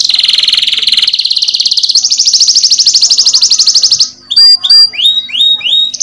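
Domestic canary singing fast rolling trills, rising to a higher, louder roll about two seconds in. Near the end it breaks into a string of short, sharp, swooping whistled notes.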